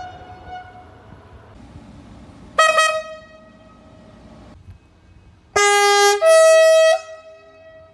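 Train horn sounding twice: a short blast about two and a half seconds in, then a longer two-tone blast about five and a half seconds in, a lower note followed by a higher one.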